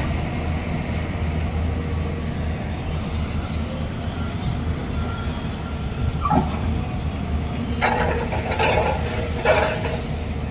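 Diesel engines of Hyundai crawler excavators running steadily under digging load, a continuous low hum. A few short bursts of clatter come in the second half.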